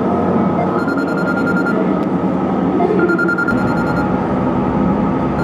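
Smartphone ringtone ringing for an incoming call, in bursts about a second long that repeat every two and a half seconds or so.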